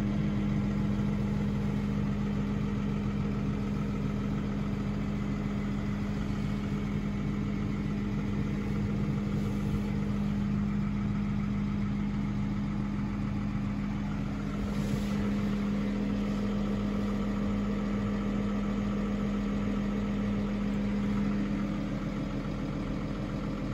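New Holland T7.210 tractor's six-cylinder diesel engine idling steadily, heard from inside the cab, with a slight change in tone near the end.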